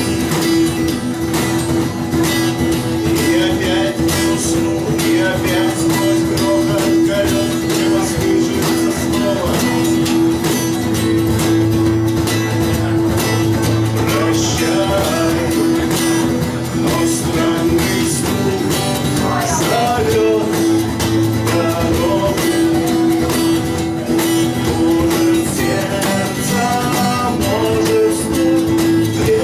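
Acoustic guitar strummed steadily, with a voice singing along over it.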